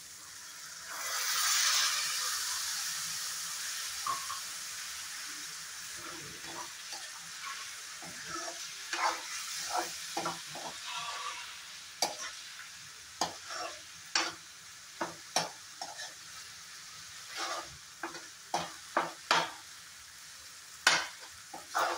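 Milk poured into a hot kadai of bottle-gourd and potato curry hisses loudly about a second in, the sizzle fading over several seconds. Then a steel spoon stirs the curry, scraping and knocking against the pan in a run of sharp clicks over a fainter simmering sizzle.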